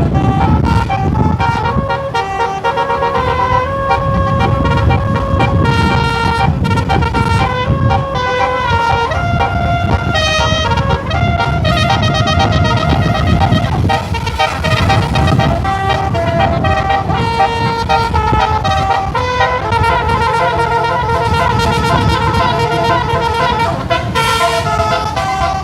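Indonesian bus telolet (basuri) musical horn playing a tune in short stepping notes, over the low rumble of the bus's engine and road noise.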